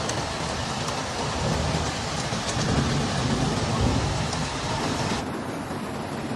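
Heavy rain pouring, a steady hiss with a low rumble underneath; the high part of the hiss drops away about five seconds in.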